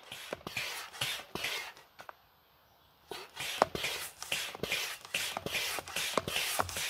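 Hand air pump worked in quick, even strokes, about two or three a second, each a rasping rush of air with a click. The pumping stops for about a second, about two seconds in, then goes on.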